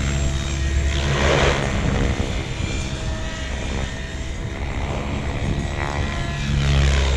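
SAB Goblin Kraken 700 electric RC helicopter flying freestyle aerobatics: a steady rotor hum with loud blade whooshes that rise and fall in pitch, about a second in and again near six seconds.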